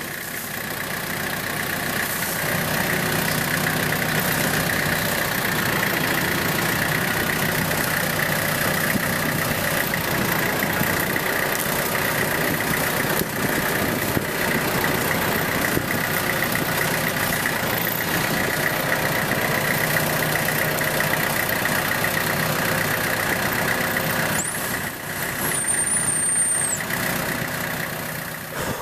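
Compact tractor engine running steadily under load as its front loader lifts a fallen log, with a steady high whine over it. A brief high squeal comes about three-quarters of the way through.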